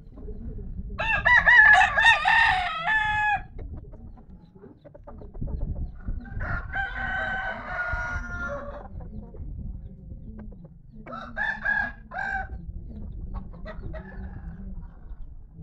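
Fighting cocks crowing three times, each crow lasting about two seconds: the first a second in and the loudest, the second around the middle, the third shorter near the end.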